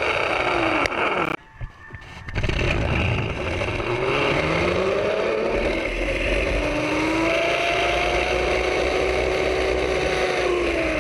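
Zip-line trolley pulleys whining along a steel cable over a steady hiss. The whine falls away as one ride slows at a platform, and after a brief drop it rises with speed on the next line, holds, and begins to fall again near the end as the rider slows.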